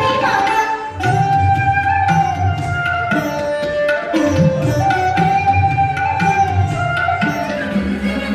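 Indian dance music: a single melody line holding long notes and sliding between them, over steady hand-drum strokes.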